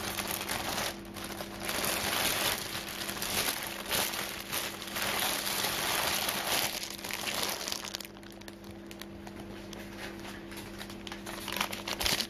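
Plastic and paper packaging crinkling and rustling as it is handled, in irregular bursts through the first half, quieter for a few seconds after the middle, then picking up again near the end.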